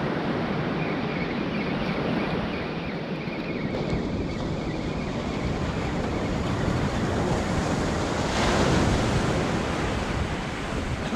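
Sea surf washing on the shore, mixed with wind buffeting the microphone. There is a louder rush about eight seconds in.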